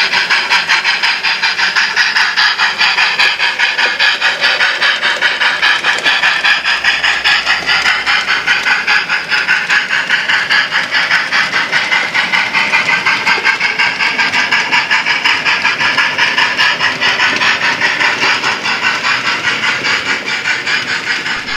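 Steam locomotive chuffing at a steady, quick beat of about four or five chuffs a second, with steam hiss throughout; it cuts off near the end.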